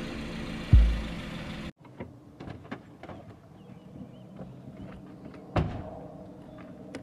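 A musical backing with a deep booming hit cuts off abruptly under two seconds in. Quiet outdoor ambience follows with light clicks, and a single thud about five and a half seconds in, likely a car door shutting.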